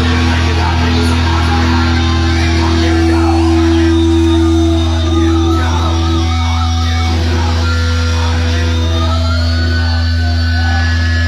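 Death metal band playing live: distorted electric guitars holding long, low chords over bass and drums, loud and continuous.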